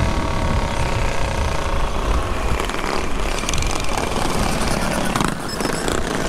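Small mini bike engine running steadily while riding, with heavy wind rumble on the helmet microphone.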